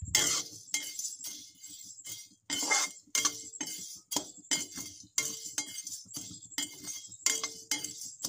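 A steel ladle scraping and clinking against a metal kadhai while stirring whole spices being dry-roasted in it. The strokes come about three a second, each with a short metallic ring.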